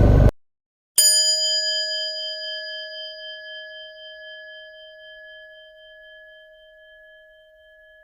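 Rock music cuts off just after the start; about a second in, a single bell-like chime is struck once and rings on, fading slowly away.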